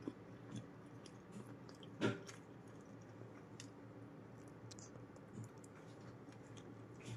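Close-up eating sounds: chewing, with scattered small mouth clicks and smacks. The loudest is a sharp click about two seconds in. A faint steady low hum lies underneath.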